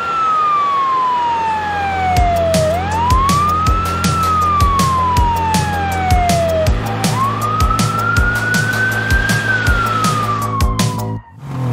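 Ambulance siren wailing: each cycle rises quickly and falls slowly, about three seconds apart, over a steady low hum with regular low thuds about twice a second. Past the middle, one longer, slower sweep rises and falls, then the sound cuts off suddenly near the end.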